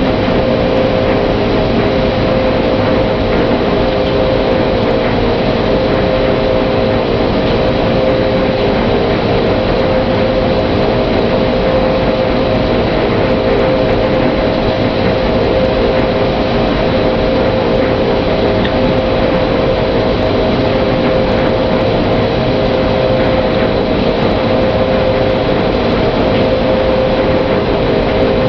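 6LN-120 rice huller and milling machine running steadily: a loud, even machine noise with a steady hum, while milled rice streams from its outlet into a bin.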